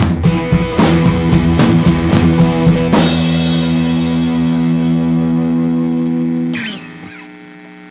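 Rock background music with distorted guitar and drums; the drums stop about three seconds in and a last held chord rings out, dying away near the end.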